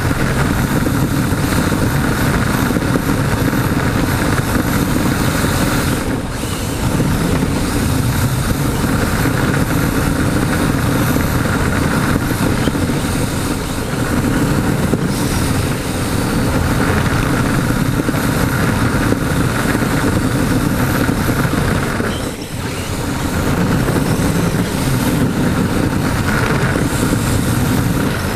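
Onboard noise of a Yokomo DIB electric RC drift car heard through the camera riding on it: a loud, steady rushing rumble from the car running and its tyres sliding on the smooth floor. The noise drops briefly twice.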